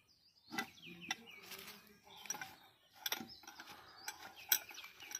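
Several sharp metal clicks and knocks from a Kubota harvester's tension roller and its bracket arm being worked by hand, the loudest about four seconds in. Birds chirp in the background.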